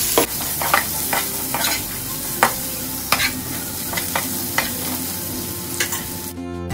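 Chopped French beans sizzling in hot oil in a nonstick kadhai, stirred with a perforated metal spoon that clicks and scrapes against the pan roughly once or twice a second. The sizzle cuts off suddenly near the end.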